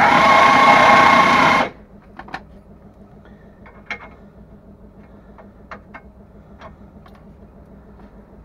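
A high-pitched motor whine that dips and rises in pitch and cuts off suddenly under two seconds in. It is followed by a quiet stretch with a few light metallic clicks and clinks.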